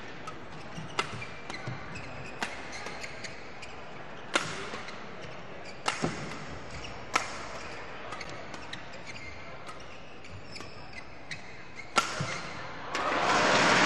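Badminton rackets striking the shuttlecock in a fast doubles rally: sharp cracks spaced a second or so apart over a low hall background. About a second before the end the crowd breaks into loud cheering and applause as the rally ends.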